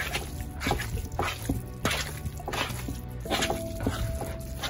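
Wet squelching of a bare hand kneading seasoned minced raw chicken in a bowl, a quick irregular run of squishes, over background music.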